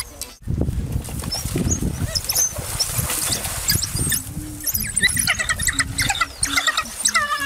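African wild dogs twittering: a rapid, continuous stream of short, high-pitched, bird-like chirps and squeals from the pack as it closes in on prey.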